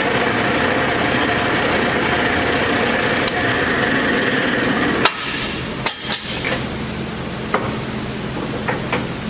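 Keiyo Seiki KM-1800C engine lathe running: a steady motor hum under a louder rushing gear noise that stops with a sharp clunk about five seconds in, followed by a few lighter clicks and knocks while the hum goes on.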